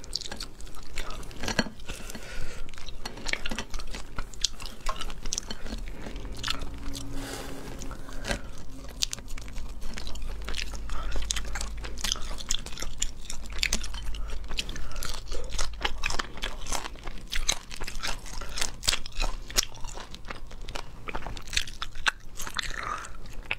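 Close-miked crunching and chewing of spicy boiled crayfish, with frequent sharp, irregular cracks and clicks as the shells are pulled apart and the meat is eaten.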